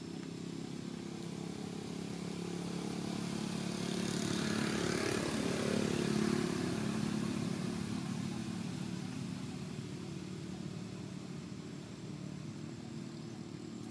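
A motor vehicle passing by: a steady engine hum that grows louder to a peak about five or six seconds in, then fades away.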